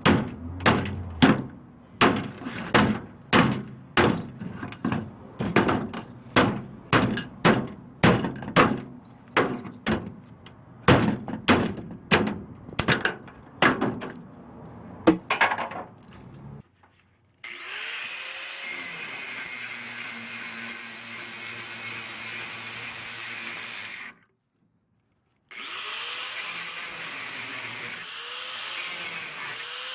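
Hammer blows on scrap metal, about one and a half strikes a second for some sixteen seconds, as an air-conditioner unit is broken apart for scrap. After that comes a steady, noisy machine-like hiss with a few rising and falling whistles, cut off briefly by a second of silence.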